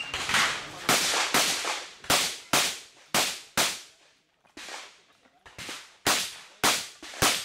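Shotgun shots fired in quick succession, about a dozen sharp cracks roughly two a second, each with a short echo, with a brief pause about four seconds in.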